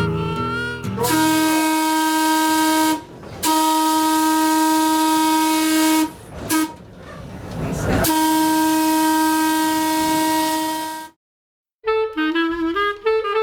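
Electric interurban railcar's horn sounding the grade-crossing signal: two long blasts, one short and one long, each a single steady tone over a hiss.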